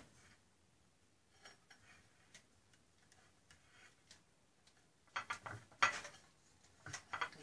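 Faint, scattered light clicks and taps of wooden skewers knocking against a ceramic plate as they are pushed into boiled corn cobs, with a louder cluster of sharp clicks about five seconds in.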